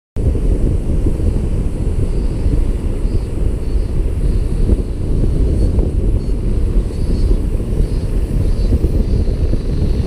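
Steady low rumble of wind buffeting the camera microphone in flight under a paraglider.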